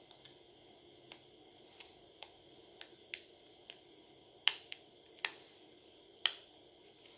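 About a dozen small, sharp clicks and taps at an uneven pace, the loudest about four and a half and six seconds in: small hard parts and tools being handled on a smartphone under repair.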